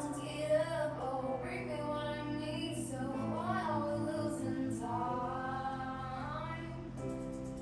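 Music: a sung melody with long, wavering held notes over a steady accompaniment.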